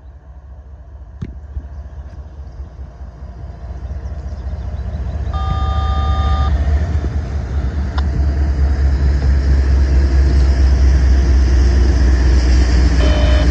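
CSX ES44AH diesel-electric locomotives with GE GEVO-12 V12 engines rumbling past as they reverse, growing louder as they near. A short horn blast sounds about five seconds in.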